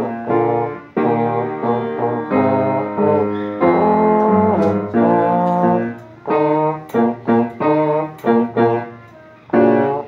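Trombone playing a melody over an accompaniment, with longer held notes at first and short, separated notes from about six seconds in.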